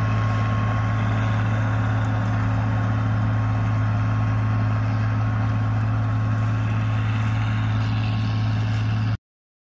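Oliver 1850 tractor engine running steadily under heavy load while pulling a plow through sod, a constant low drone. It cuts off suddenly near the end.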